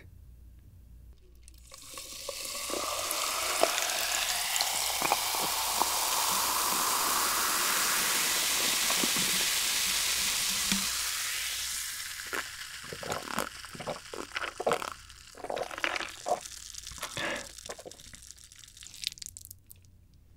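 Cola poured from a plastic bottle into a big glass jar of ice. The fizzing pour rises steadily in pitch as the jar fills. Once the pour stops, scattered crackling and popping follows as the carbonation fizzes and the ice settles.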